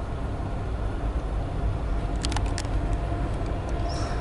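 Norfolk Southern EMD diesel locomotives pulling an intermodal train, a steady low rumble, with a few sharp clicks a little past halfway.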